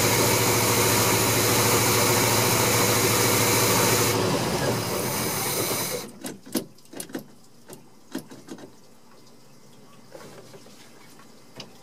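Engine running steadily at idle on a freshly rebuilt Rochester Quadrajet four-barrel carburetor, which the owner calls a successful fix. It is shut off about four seconds in and dies away by about six seconds, followed by a few scattered light clicks.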